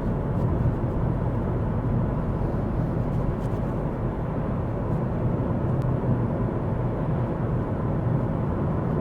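Steady road and engine noise inside a moving Ford Focus: an even low rumble with no change in pace.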